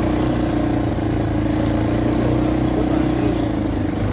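ATV (quad bike) engine running at a steady pitch under way, with no revving or change in speed.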